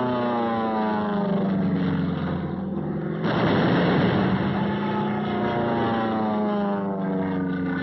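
Propeller warplane engines droning past, their pitch falling as they go by, heard as two passes. A sudden loud rush of noise comes about three seconds in.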